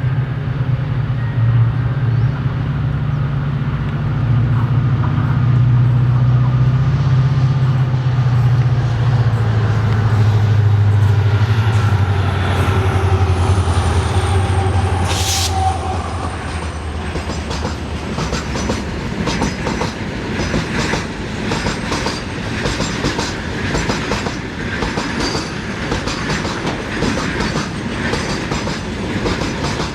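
A diesel-hauled train passing close by: the locomotive's low engine hum sinks slightly in pitch as it goes by, then the coaches roll past with a steady clickety-clack of wheels over the rail joints. A brief sharp noise stands out about fifteen seconds in.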